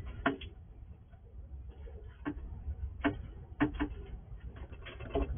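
Squirrel eating in its plastic nest box, irregular sharp crunching clicks of its teeth on food, some single and some in quick clusters, over a low steady hum.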